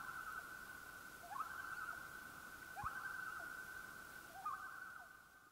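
Night-time animal chorus: a steady high trill with a short rising call repeated about every one and a half seconds, fading out near the end.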